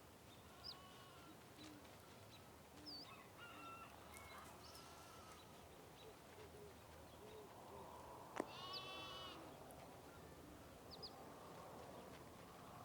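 Faint animal calls with short high bird chirps, and one louder, longer call about nine seconds in, just after a sharp click.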